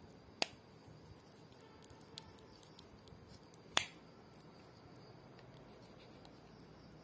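Plastic charging case of Pro 6 wireless earbuds being handled: two sharp clicks about three seconds apart as its hinged lid snaps, with light plastic ticks between.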